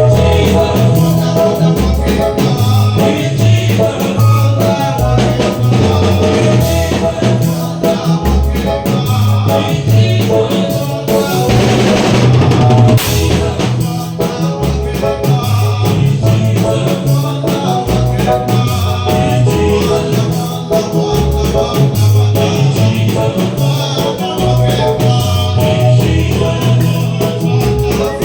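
Christian worship song with singing over a band that includes a drum kit.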